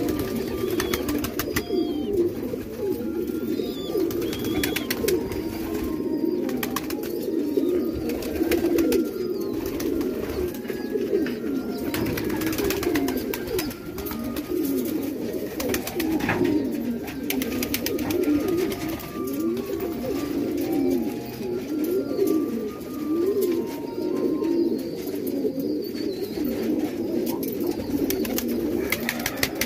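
A flock of domestic pigeons cooing continuously, many low, warbling coos overlapping, with scattered sharp clicks among them.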